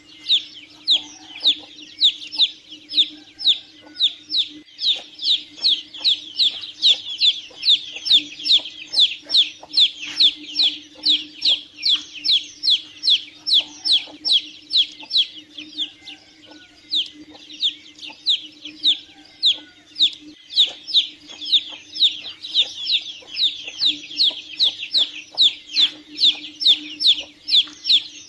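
Domestic chicks peeping: loud, shrill calls that slide downward in pitch, repeated about three times a second, with a brief pause about halfway through. A faint steady low hum runs underneath.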